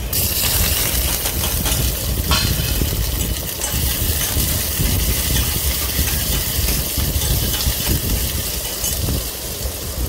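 Sliced onions, green chillies and curry leaves sizzling steadily in hot oil in a stainless steel pot as they go in on top of the fried tempering seeds and dals. A steel ladle stirring them gives a few brief clinks against the pot.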